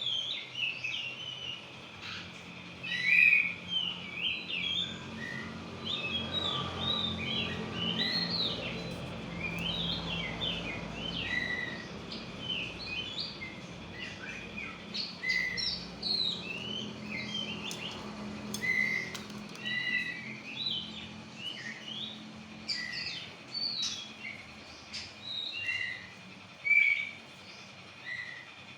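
Oriental magpie-robin (kacer) singing a continuous, varied run of short chirps and whistled phrases.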